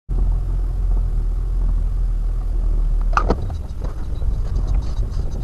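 Car on the move, heard through a dashcam: a steady low rumble of engine and road noise, with a brief sharper, higher sound about three seconds in.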